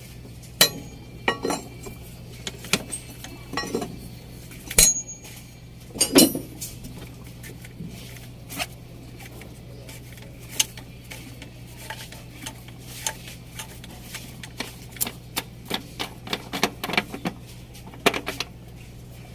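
Metal hand tools and engine parts clinking and knocking in irregular sharp strikes, over a steady low hum.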